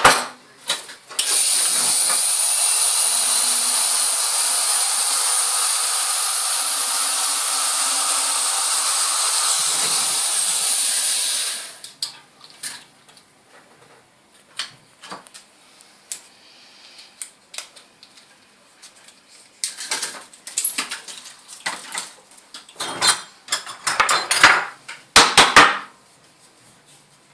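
A small high-speed rotary tool, of the kind used at a jeweller's bench to work a gold ring, runs steadily for about ten seconds with a high whine, then stops abruptly. Scattered small clicks and taps of metal tools follow, busiest near the end.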